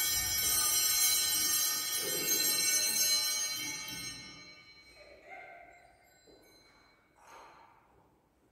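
Sustained music, full of steady high tones, dying away over the first four seconds or so, followed by faint scattered small sounds.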